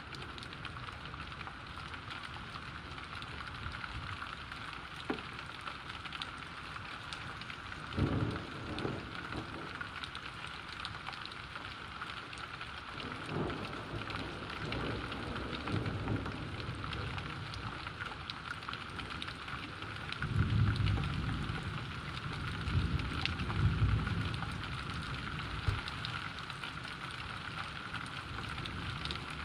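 Steady rain falling, with thunder rumbling several times: a short rumble about eight seconds in, more around the middle, and the longest and loudest rolls in the second half.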